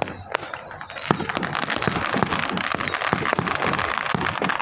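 A string of firecrackers going off: rapid, irregular cracks and pops that keep on without a break.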